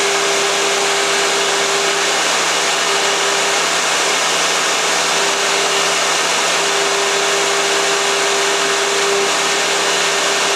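CNC milling machine's spindle running at 6,000 RPM while a 45-degree chamfer cutter cuts around the top edge of an aluminium part under flood coolant. The result is a steady, loud rushing noise with a humming tone that drops out and comes back a few times.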